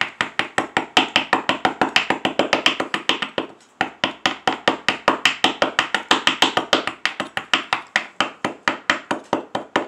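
Metal putty knife chopping at a hard chalky block in rapid taps, about four or five a second, chipping it to powder, with a short pause about three and a half seconds in.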